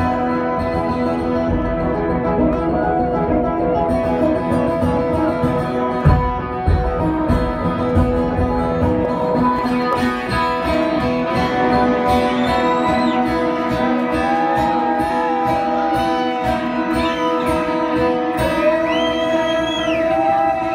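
Live rock music: a guitar plays a lead line over a held chord, bending notes up and holding them, most clearly about twelve seconds in and again near the end.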